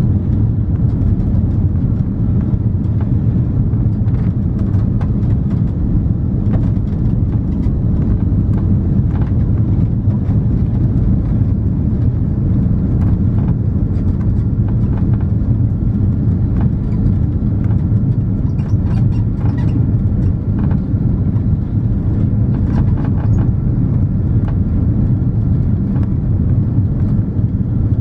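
Cabin noise inside an Airbus A340-300 on final approach: a steady low rumble of its four CFM56 engines and the airflow over the extended flaps, with now and then a faint rattle.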